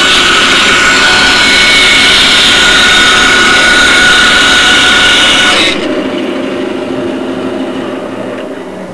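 RIDGID power tool running loudly and steadily, then switched off a little under six seconds in, its motor winding down and fading.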